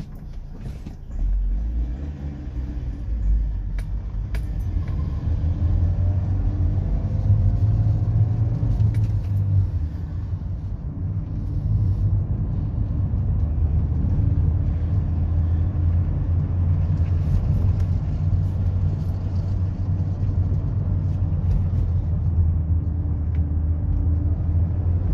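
Engine and road noise of a manual-gearbox Kia car, heard from inside the cabin while it is driven: a steady low rumble that gets louder about a second in as the car pulls away, with a few light clicks over it.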